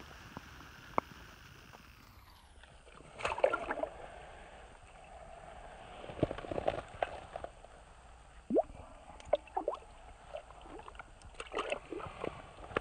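Water sloshing and splashing in an ice-fishing hole as a hand lowers a yellow perch back in, with short splashes coming in several clusters.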